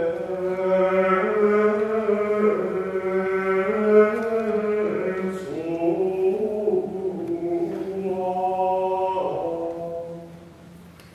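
A choir singing slow Latin plainchant in a large church, with long held notes. The singing dies away about a second before the end.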